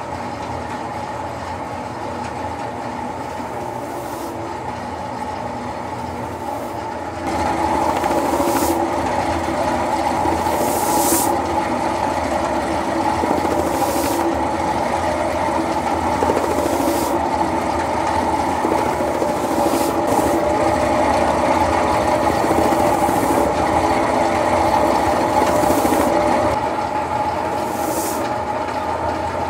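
Motor-driven abrasive drum running steadily as a sheepskin's flesh side is pressed against it and buffed to a suede (velour) nap. It grows louder about seven seconds in as the skin is held to the drum, with a short hiss every few seconds.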